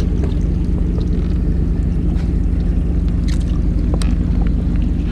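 Fishing boat's engine running steadily with a low, even hum, with a few light clicks and taps over it.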